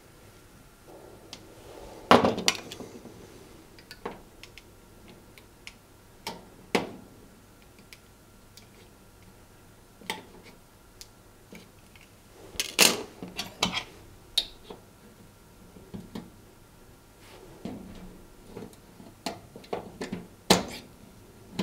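Small metal hand tools clicking, knocking and scraping against a cooker's metal side trim and ceramic glass hob top as a rivet is prised out, in scattered sharp clicks with a few louder knocks.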